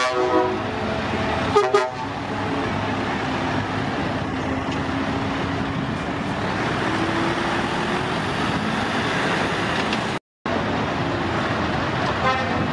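Short air-horn toots from a Scania truck at the start and again about two seconds in, with a third near the end. Between them, the steady running of a Scania R730's V8 engine as the truck moves slowly.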